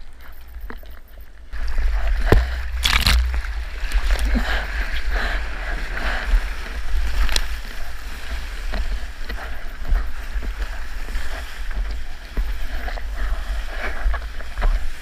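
Water rushing and spraying along a single-fin longboard as it rides a wave, with a deep rumble of wind and water on the action camera's microphone. It starts about a second and a half in, with a couple of sharp splashes as the board catches the wave.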